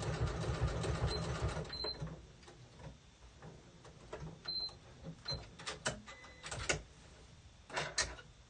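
Wet terry-cloth towel rubbed and scrunched by hand in a sink: dense rustling for about the first two seconds, then scattered brief rubs and knocks.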